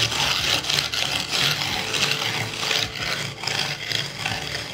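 Wooden float (fratacho) rubbed back and forth over fresh cement repair mortar (Sika MonoTop 615), making repeated scraping strokes. The mortar is being floated level as a base for a thin finishing coat.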